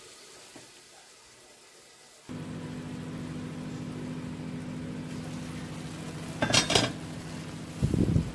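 Chicken cooking in its own juices in a covered stainless-steel Saladmaster skillet: starts quiet, then about two seconds in a steady low hum with sizzling sets in. About six and a half seconds in, the steel lid clinks as it is lifted to let the steam out, and a low thump follows near the end.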